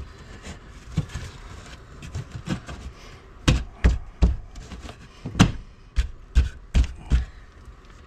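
A small wooden box being knocked by hand into a hole cut in the wall: a series of sharp wooden knocks and thumps, scattered at first, then about eight in quick succession in the second half.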